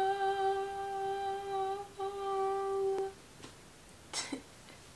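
A young woman's voice sounding one long humming note through her cupped hands, like a horn. It breaks off briefly about two seconds in, resumes at the same pitch and stops about three seconds in, followed by a short breathy sound near the end.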